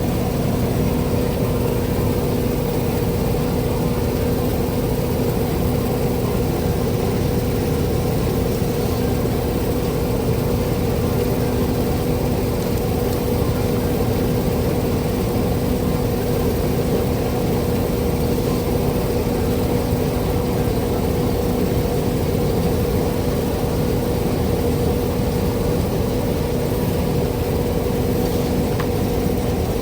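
Farm machinery engine running at a constant speed, a steady hum with no change in pitch or level.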